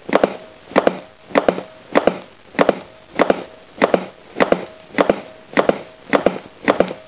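Adult CPR training manikin clicking under steady chest compressions, a quick double click with each push, at about 100 compressions a minute.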